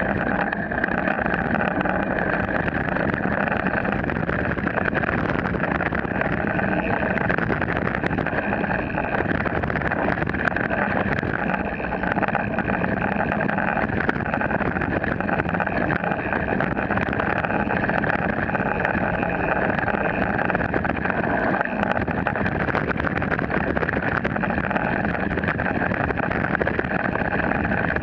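Mountain bike rolling down a dirt trail, heard from a camera mounted by the rear wheel: a steady rumble and rattle from the knobby tyre on dirt and the bike shaking over the ground.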